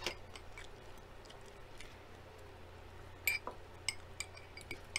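Metal fork clinking against a small glass bowl while scooping food: one sharp clink at the start, then about five more in the last two seconds.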